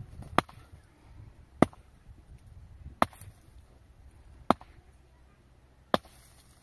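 Five sharp, evenly spaced blows, about a second and a half apart, of a hand tool striking a hard material, as in chopping or hammering.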